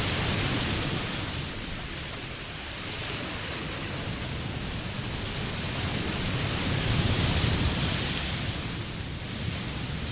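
Ocean surf breaking and washing up a sandy beach, a steady rush of waves that eases a couple of seconds in and swells again about seven seconds in.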